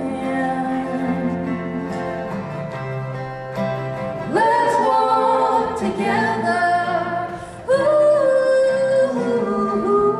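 A man and a woman singing together over strummed acoustic guitars. Long held notes scoop up into pitch about four and eight seconds in.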